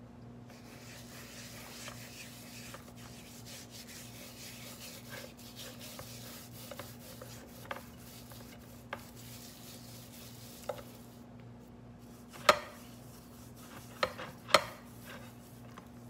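Hands rubbing brown sugar into raw pork spare ribs: a soft, steady rustling of skin on meat, with a few small clicks. Near the end come three sharp knocks against the baking dishes, the loudest sounds here.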